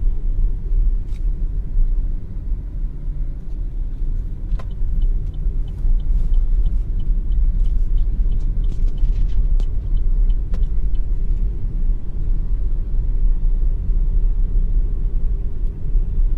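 Steady low rumble of road and engine noise inside a moving car's cabin. From about four seconds in, faint light ticks repeat for several seconds.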